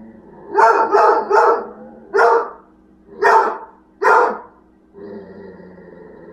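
A dog barking: three quick barks in a row, then three single barks about a second apart.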